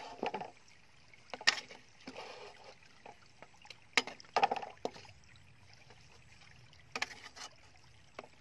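Metal spatula scraping and clinking against an aluminium wok as food is stirred and lifted out. There are several sharp clinks, the loudest about one and a half and four seconds in, with short scrapes between.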